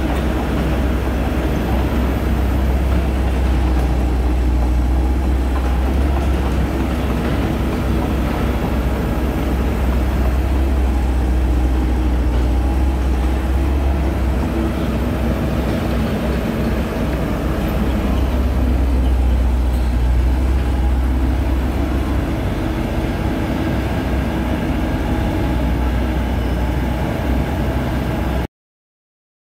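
Diesel engine of a Komatsu PC78US-8 compact excavator running steadily, a low, even drone that cuts off abruptly near the end.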